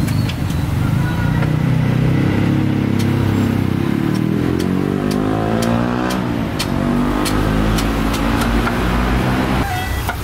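A motor vehicle's engine running, the loudest sound, its pitch shifting up and down in the middle. Now and then a sharp knock, a cleaver on a wooden chopping block.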